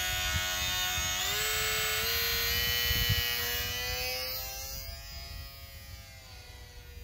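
Electric motor and propeller of a ParkZone UMX Pole Cat micro RC plane whining steadily as the plane is hand-launched. The pitch steps up about a second in, and the whine fades over the last few seconds as the plane flies away.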